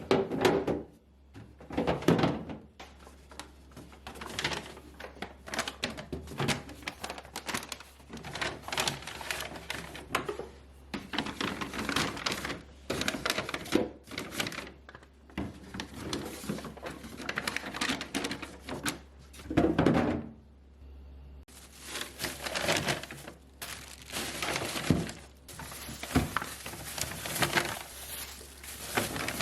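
Household items being handled and set down: frequent light knocks, clicks and plastic crinkling. A low steady hum runs underneath.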